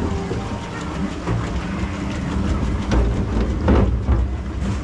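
Log flume boat riding up the lift-hill conveyor: a steady low rumble with rapid clattering from the lift belt under the hull, with a few louder knocks about three to four seconds in.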